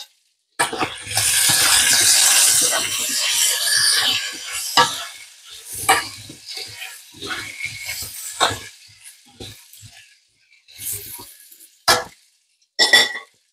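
Quartered red baby potatoes sizzling in hot butter in a frying pan: a loud sizzle starts about half a second in and dies down over the next few seconds. After that come several sharp clacks of metal tongs against the pan as the potatoes are turned.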